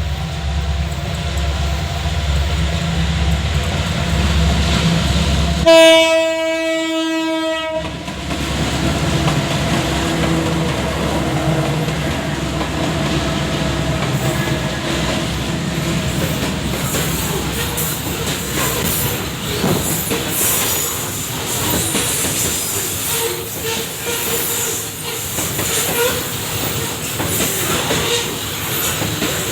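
Babaranjang long coal train passing: the locomotive rumbles low, then gives one loud horn blast of about two seconds, about six seconds in. After that the wagons keep up a steady rolling clatter over the rails.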